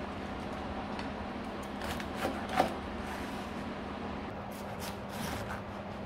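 Kitchen knife slicing through a cabbage wedge onto a cutting board: a handful of short crisp cuts, the sharpest about two and a half seconds in and another cluster near the end, over a steady low hum.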